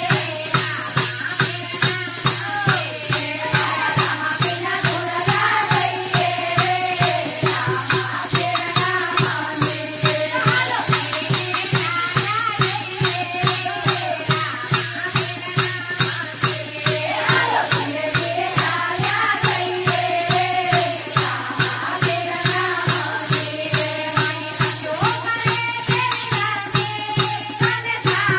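Group of women singing a Gujarati devotional bhajan to Ramapir, with wooden kartal clappers jingling and clacking in a steady beat throughout.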